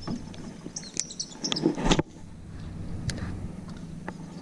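Outdoor lakeside ambience: faint bird chirps over a low steady hum, with a few sharp clicks and rustles from handling a spinning rod and reel. The busier first two seconds stop abruptly.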